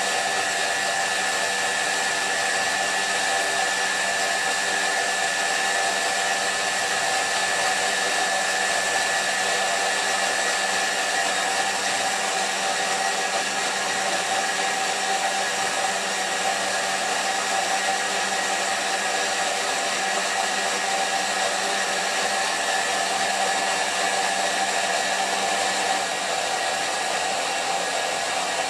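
Thermomix TM6 motor running at high speed (speed 8), its blade grinding soaked soybeans with water into a slurry. A steady motor whine with a dense rushing noise.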